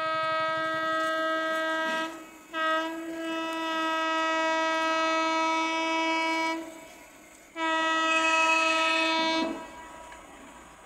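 WAP-4 electric locomotive's horn sounding three long, steady single-pitched blasts, the middle one about four seconds long, as the express approaches the level crossing.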